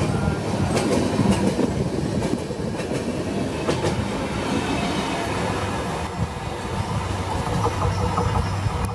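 Passenger express train passing at speed, its wheels clattering over rail joints.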